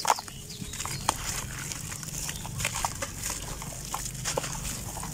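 A dry, gritty sand block crumbled by hand over a basin of water: scattered crunches and crackles, with a sharp crack at the start, as grit and powder fall into the water.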